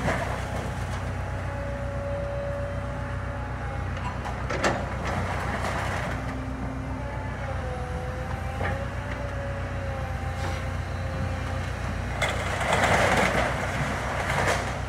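Kobelco excavator's diesel engine running steadily, with a thin whine that wavers in pitch as it works. A few sharp knocks come through, and a louder spell of noise rises near the end.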